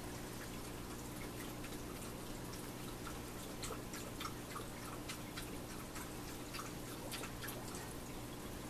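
Air-driven aquarium sponge filters bubbling: irregular small pops and drips of water at the surface over a steady low hum.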